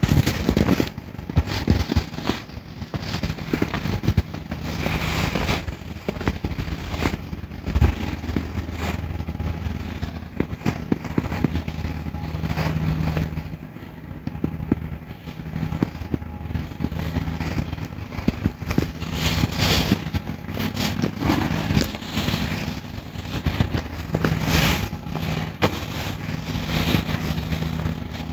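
Irregular crackling and clicking over a steady low hum; the hum drops out for a few seconds about halfway through and then returns.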